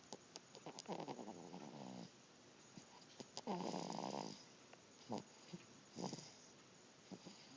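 Snoring: two drawn-out, pitched snores about two and a half seconds apart, then two short snorts near the end.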